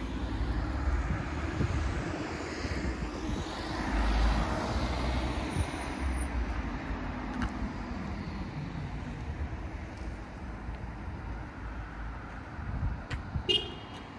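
Outdoor street ambience dominated by the steady rush of passing motor traffic, swelling about four seconds in and slowly fading. A few short, sharp sounds come near the end.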